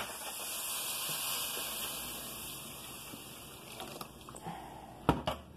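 Milk poured from a plastic gallon jug into a hot skillet of browned flour and sausage, hissing as it hits the pan; the hiss fades over a few seconds. A single sharp knock near the end.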